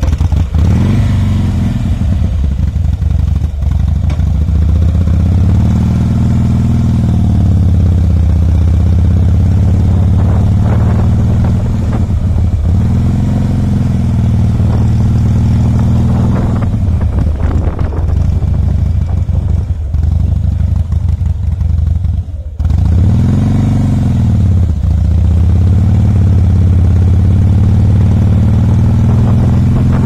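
2007 Harley-Davidson Softail Custom's air-cooled V-twin running as the bike is ridden. The revs rise and fall again and again, with a brief sharp drop about two-thirds of the way through.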